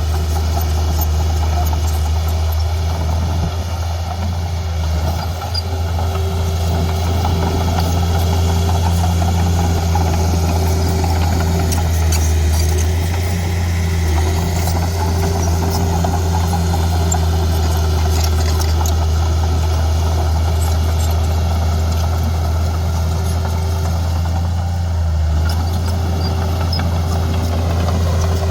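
Heavy diesel engine of an earthmoving machine running steadily at an even speed, with a slight dip in loudness about five seconds in.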